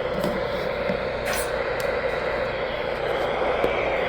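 Weather radio receiver hissing with static and scattered crackles, the sound of a weak broadcast signal.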